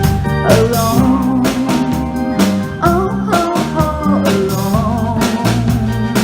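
A live soul-blues band playing: drum kit keeping a steady beat under bass and chords, with a lead melody line that bends and wavers.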